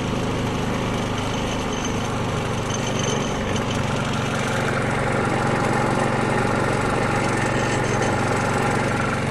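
Predator 3500 inverter generator's single-cylinder gasoline engine running steadily at low speed with its eco throttle switched on, a quiet even hum.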